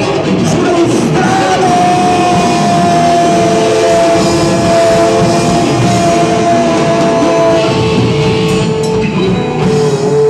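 Loud live noise-rock performance: a dense, distorted wall of sound with two long held tones over it, the higher one fading out about three-quarters of the way through.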